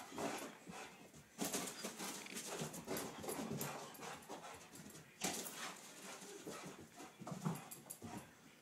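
A golden retriever–Labrador mix scrambling and pouncing on carpet after a flashlight spot: irregular scuffs and thumps of its paws, with sudden louder bursts about a second and a half in and again about five seconds in.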